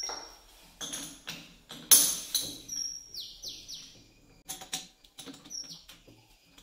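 Metal knocks and clinks as a steel round bar is seated in a four-jaw lathe chuck and its jaws are set by hand, the loudest a sharp clank about two seconds in. High chirps that fall in pitch, like a small bird's, sound about three seconds in.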